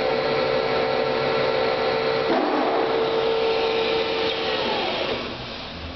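WM 280 CNC lathe spindle running with a steady whine. About two seconds in the machine cabin door is slid open with a brief scraping noise, and a couple of seconds later the whine falls in pitch and the machine gets quieter: the control is cutting the spindle back to a reduced speed because the cabin is open.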